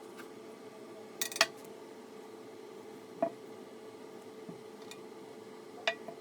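A few light clinks over a steady hum: two close together about a second in, then single ones about halfway and near the end.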